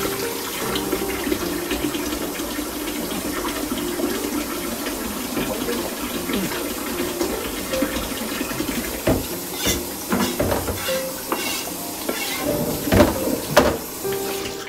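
Kitchen tap running into the sink while a cutting board is rinsed under it, with several knocks and clatters in the second half as the board and utensils are handled.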